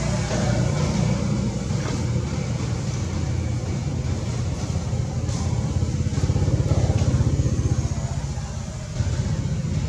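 Steady low engine rumble of road traffic, swelling to its loudest about six to seven seconds in.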